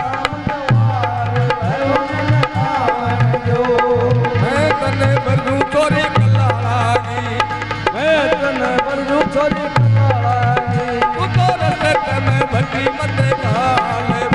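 Rajasthani devotional folk music, a bhajan to Bheruji: a hand drum beats steadily under a wavering melody line.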